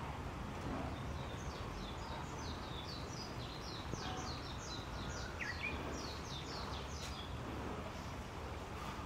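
A small songbird sings a run of short, high, down-sweeping notes, about four a second, for roughly six seconds over steady low background noise.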